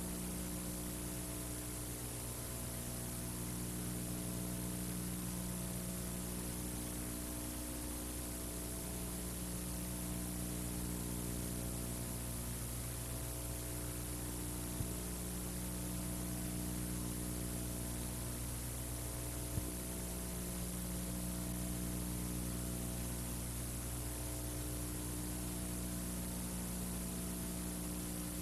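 Steady electrical mains hum with a layer of hiss, and two faint clicks in the middle.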